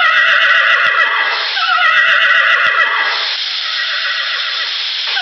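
Horse whinnying: long quavering whinnies that run on with barely a break, the pitch falling about a second and a half in and again near three seconds.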